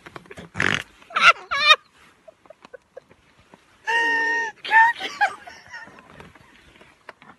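Women shrieking and laughing as they struggle out of a shared hammock: a short cry, then wavering squeals, and a long held squeal about four seconds in, with faint rustling of jackets and hammock fabric between.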